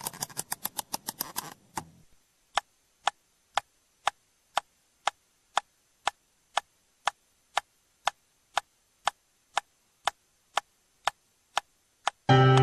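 Sharp, even ticking about two ticks a second, after a short run of faster ticks over a hiss in the first two seconds. Music comes back in near the end.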